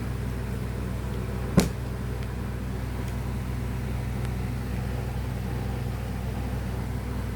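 Steady low mechanical hum, with one sharp knock about a second and a half in.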